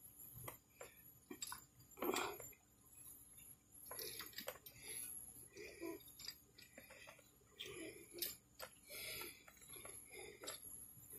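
Faint clicking and metallic clinks of a socket ratchet on the crankshaft pulley bolt as the engine is turned over slowly by hand to bring a cylinder up on compression.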